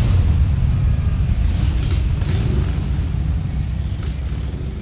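Low rumble of motorcycle engines riding past on the road, fading near the end.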